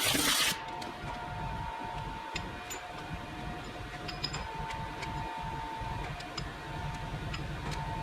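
CNC milling machine: a loud rushing noise stops abruptly about half a second in. The machine then runs on with a low hum, a thin whine that switches on and off, and scattered light ticks.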